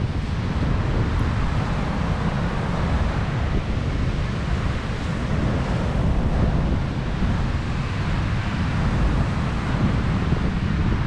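Steady wind buffeting the microphone, a loud noise heaviest in the low end.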